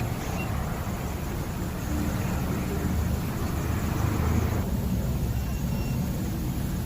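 Steady low rumble like vehicle traffic or a running engine, with a hiss joining about two seconds in and cutting off suddenly a few seconds later.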